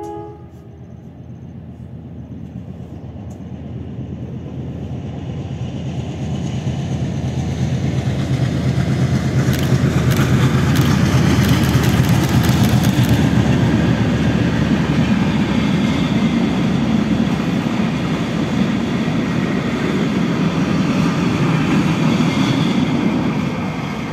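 A single ALCO WDM3A diesel-electric locomotive working under full power, hauling an LHB passenger train across a concrete river bridge. The deep engine drone swells as it approaches, a quick run of sharp wheel clicks comes about ten seconds in, and the rumble of the passing coaches follows, dropping away near the end.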